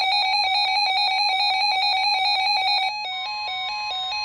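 Weather radio receivers sounding their alert alarms for a severe thunderstorm warning. A fast warbling two-pitch electronic beep gives way, about three seconds in, to a slower two-tone alternation over a steady higher tone.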